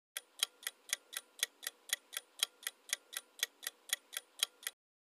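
Quiz countdown-timer sound effect: a clock-like tick repeating evenly about four times a second, counting down the answer time, then cutting off suddenly near the end.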